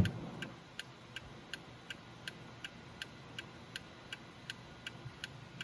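WD Electronics turn signal kit's flasher ticking steadily with the blinker switched on, about three even ticks a second. A single knock comes right at the start.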